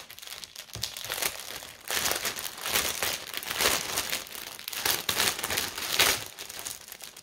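Clear plastic packaging bag of a cross-stitch kit crinkling on and off as hands handle it and work it open.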